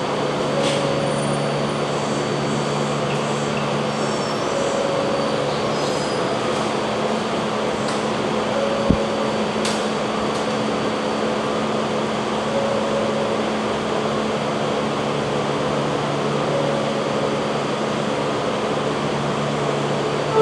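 Osaka Metro 400 series subway train standing at the platform with its doors open, its onboard equipment and air conditioning giving a steady electrical hum with several held low tones; a fainter higher tone comes and goes every few seconds. A single sharp click sounds about nine seconds in.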